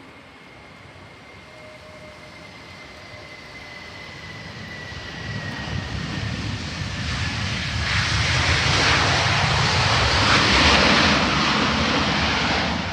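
Airliner passing close, its engine noise growing steadily louder to a peak near the end. Early on, a high engine whine slowly falls in pitch.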